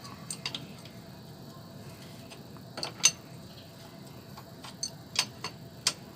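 Light metal clicks and clinks of a metal oil cooler adapter fitting being handled and set against a motorcycle engine's oil filler port, a handful of sharp taps, the loudest about three seconds in.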